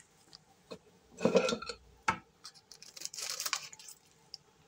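A clear plastic bag of dry falafel mix being handled and cut open with scissors: a few short crinkles and snips with sharp clicks in between.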